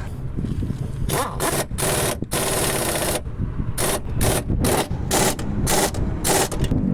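A pneumatic workshop tool is run in a string of short bursts, about a dozen, with one longer burst of nearly a second between two and three seconds in.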